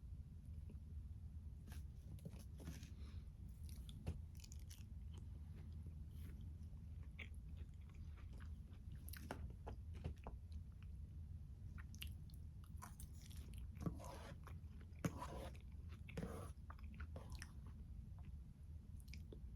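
Close-miked chewing and biting of a tomato, peach and basil salad, with many short mouth clicks and smacks and a few louder clicks in the second half, over a steady low hum.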